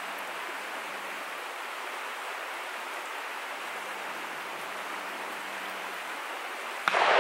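Steady rushing hiss, then near the end a single sudden, loud shotgun blast that echoes away over a second or so, fired by skeet shooters nearby.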